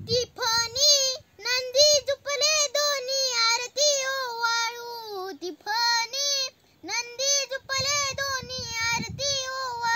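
A young girl singing a Marathi aarti (devotional song) unaccompanied, in held, melodic phrases with short breaks for breath between them.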